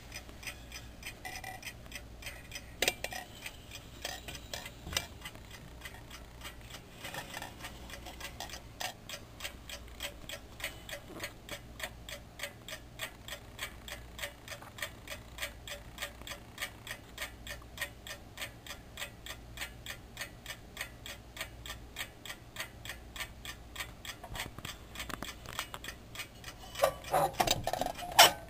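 Vintage cloisonné enamel and brass mantel clock running, its movement ticking steadily at about four ticks a second. A few louder knocks, the loudest in a cluster near the end.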